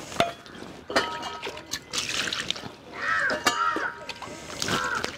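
Water poured from a small steel bowl over velvet bean pods in a steel plate, with splashing and sharp metal clinks as the pods are rubbed clean by hand. From about three seconds in, a crow caws several times.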